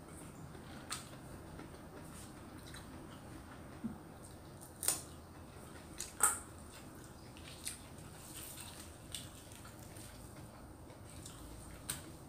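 Faint eating by hand: fingers working rice in a stainless steel bowl and chewing, heard as scattered sharp smacks and clicks, loudest about five and six seconds in.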